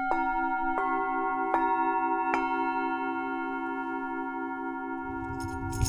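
Metal singing bowls struck one after another, four strikes about three quarters of a second apart, their tones ringing on and overlapping into a slowly fading chord with a wavering low hum. A high rattle comes in near the end.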